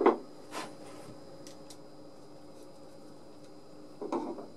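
Small wooden parts knocked against each other and set down on a workbench: one sharp knock at the start, a lighter one half a second later, and a short clatter of knocks about four seconds in, over a faint steady hum.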